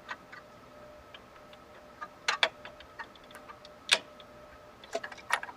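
Sharp plastic clicks and taps of an 8-pin CPU power connector being worked into its tight socket on a motherboard, in small clusters, the loudest click just before four seconds in.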